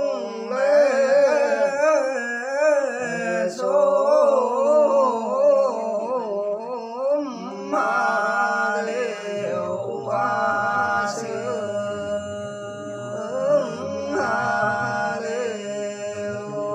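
A man singing hà lều unaccompanied: a slow folk chant with long held notes and wavering ornaments on each note, broken by short breaths.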